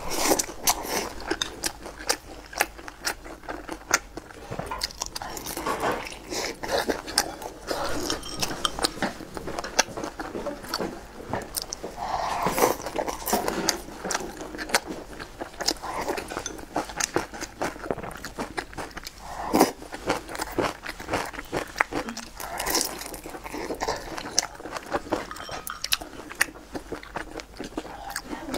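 Close-up eating sounds: biting into and chewing pan-fried dumplings, with a constant run of small, irregular wet mouth clicks.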